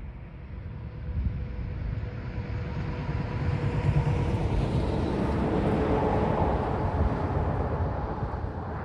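A semi-truck pulling double trailers drives past. Its engine and tyre noise builds up, peaks, then begins to fade.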